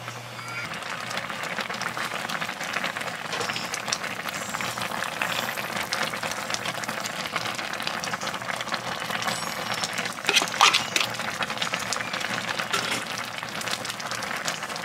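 Food sizzling in hot cooking oil in a pan, a dense, steady crackle, with a louder flurry of crackles about ten and a half seconds in.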